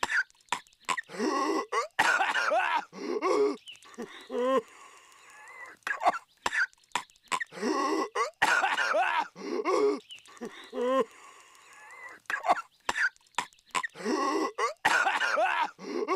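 Patrick Star, the cartoon starfish, in a voice-acted coughing fit: harsh hacking coughs and throat-clearing sounds with short sharp hacks between them. The same short clip plays on a loop, repeating about every six and a half seconds.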